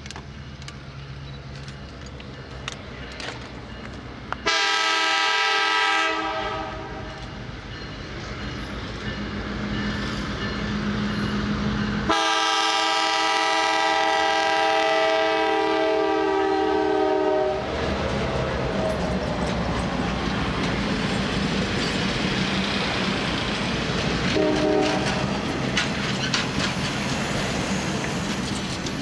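Norfolk Southern business train's F-unit diesel locomotive sounding its air horn as it approaches: a short blast about four seconds in, then a long blast of about five seconds. Then the train passes close by, its diesel engines running and the passenger cars' wheels clicking over the rails.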